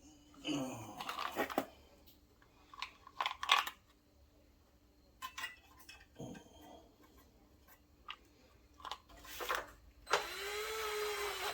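Scattered clicks and knocks of metal parts and hand tools being handled on a small engine during reassembly. Near the end a small motor whirs steadily for about a second and a half.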